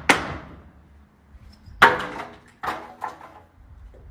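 Sharp knocks or bangs: one at the very start, a louder one about two seconds in with a short ringing tail, then a few lighter knocks soon after.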